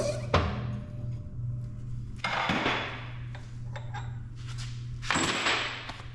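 Steel press blocks being handled on a shop press after a bearing press-fit: a knock just after the start, then two short metallic scrapes, one in the middle and one near the end. A steady low hum runs underneath.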